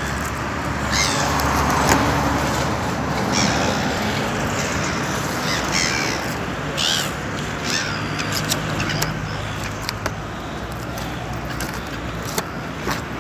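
Harsh, crow-like bird calls, about half a dozen short caws between about a second and nine seconds in, over a steady low hum.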